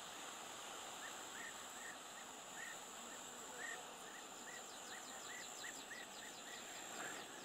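Faint bird calls: a short chirp repeated about two to three times a second, joined about halfway by a fast, high trill of quick falling notes, over a steady high hiss.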